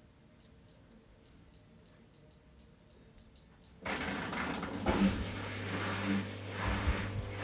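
Candy GrandO Vita Smart Fi+ washing machine control panel beeping: five short high beeps, then one slightly lower, longer beep. About four seconds in, the machine starts up with a steady low hum and a rushing noise that carries on and is louder than the beeps.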